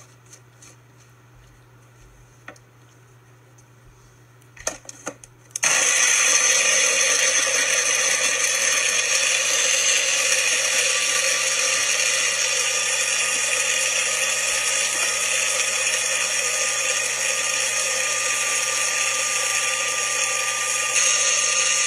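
Magic Bullet blender starting up suddenly about five and a half seconds in, after a few short clicks. It then runs steadily and loudly, blending soaked almonds with water into almond milk.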